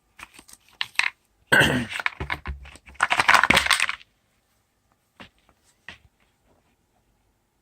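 Hardback book being slid out of its protective cover: a few light taps, then two rough scraping slides of card and paper, the second about a second long, then a few more light taps.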